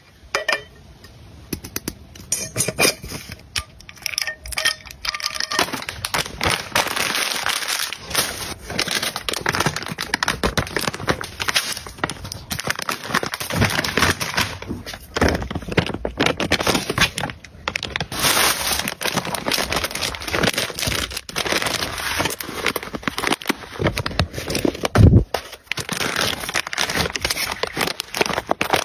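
Plastic packaging crinkling and crackling as bags are handled and pushed into place, with dense small clicks and rustles. It is quieter for the first few seconds, then busy.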